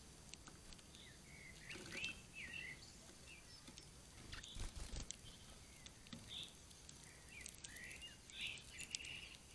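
Small songbirds calling with scattered short chirps and whistles, over light ticks and a soft low knock about five seconds in from birds pecking and moving on a wooden seed feeder.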